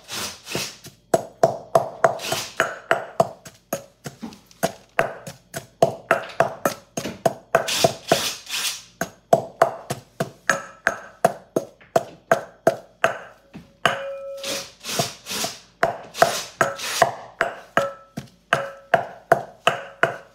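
Wooden pestle pounding steadily in a metal mortar at about three strikes a second, each blow thudding and leaving a short metallic ring from the bowl. The ring grows clearer in the second half. It is pounding grilled garlic and chilies with salt, sugar and bouillon into a paste.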